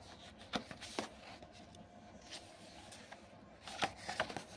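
Pages of a printed book being leafed through by hand: scattered paper rustles and light clicks, busier near the end.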